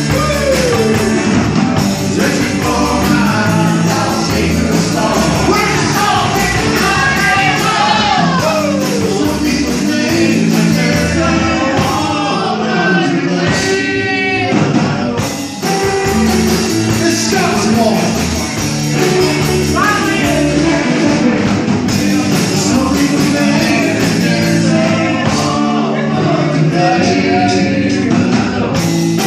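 Country-rock band music with a steady beat and a bending lead melody line, an instrumental stretch with little or no clear sung words.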